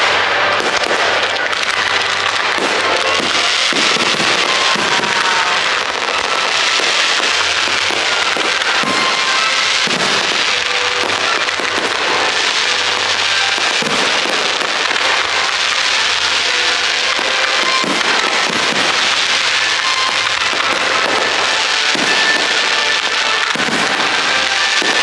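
A dense fireworks barrage: many shells and comets going off at once, a rapid, unbroken run of pops over a continuous crackling hiss that stays at full strength throughout.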